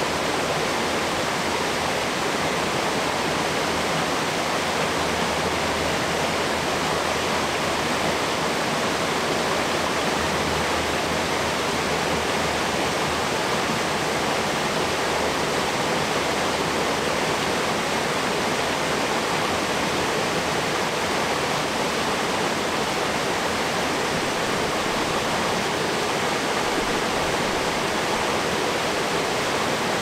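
Mountain valley stream, its water rushing in a steady, even flow.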